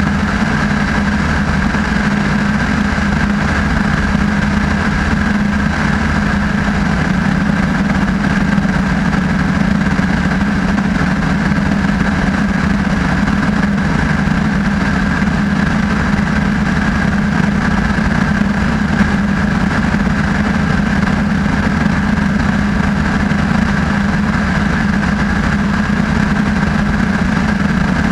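Light aircraft's engine and propeller running at a steady, unchanging drone, heard from inside the cabin in level cruise on approach.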